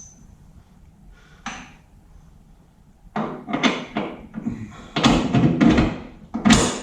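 A series of loud metal clanks, knocks and scrapes from heavy rear-axle parts being handled and set in place, starting about three seconds in, after one faint click.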